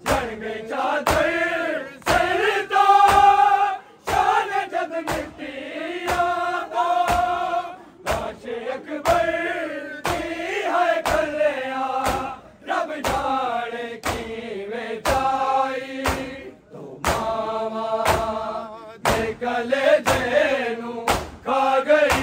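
Male voices chanting a Punjabi noha, a Shia lament sung in unison, over a steady beat of sharp slaps coming a little under twice a second.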